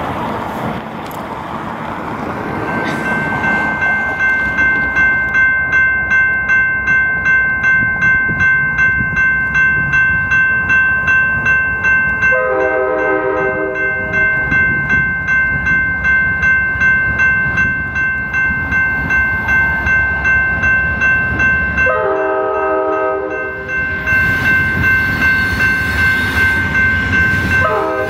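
A grade-crossing bell rings steadily at about two strokes a second, starting about three seconds in. Over it, an Amtrak GE P42DC locomotive's air horn sounds two long blasts, the first about twelve seconds in and the second about twenty-two seconds in, and begins a third right at the end, as it whistles for the crossing.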